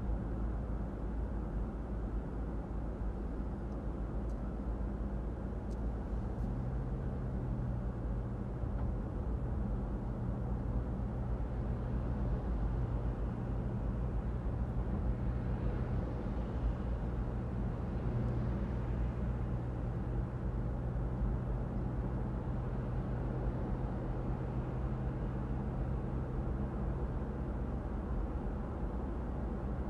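Car driving at a steady pace: a low, even rumble of engine and road noise with a steady engine hum underneath.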